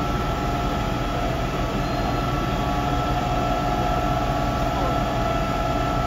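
Fire engine's motor and water pump running steadily while it supplies the hoses connected to it. It is a constant low drone with a steady whine over it.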